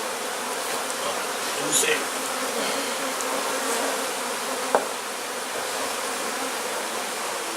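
A mass of honeybees buzzing steadily as the colony is handled during a hive extraction. A single sharp click sounds a little after halfway.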